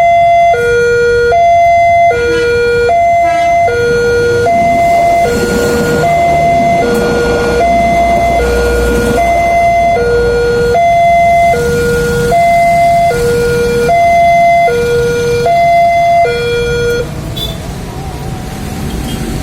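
Railway level-crossing warning siren sounding a loud two-tone hi-lo alarm, switching between a high and a low tone about every 0.8 s, then cutting off near the end. The tone is one that the uploader finds out of tune.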